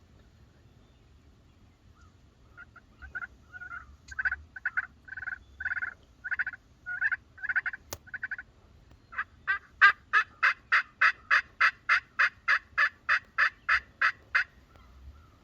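Turkey yelps: a run of short yelps about two to three a second, then a faster, louder run of about twenty yelps at about four a second. A single sharp click comes just before the faster run.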